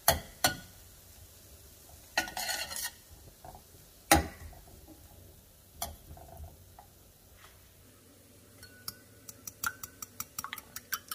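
A metal spatula knocking and scraping around a stainless steel frying pan, a few separate knocks and a short scrape. Then, from about eight seconds in, quick repeated clinking of a metal utensil against a ceramic bowl as eggs are beaten, each clink ringing briefly.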